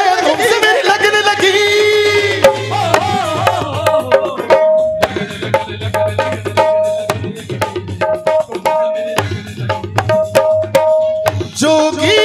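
Live Indian band music: a male singer holds one long wavering note for about the first two seconds, then the band plays on without voice, with crisp tabla strokes under a keyboard note repeating about twice a second.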